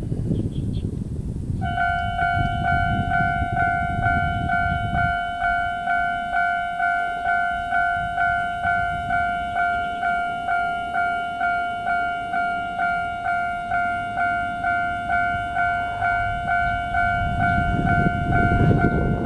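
Level-crossing warning bell starting about two seconds in and dinging steadily about twice a second, the signal that a train is approaching the crossing. A low rumble builds under it near the end.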